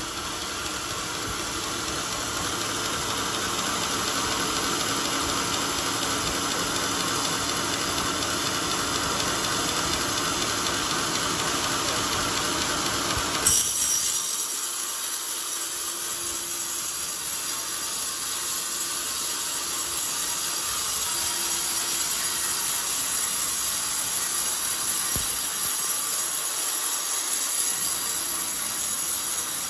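Large band sawmill's blade cutting lengthwise through a beam of old, very hard coconut palm wood, a steady machine noise. About halfway through there is a brief louder spike, and after it the noise turns hissier.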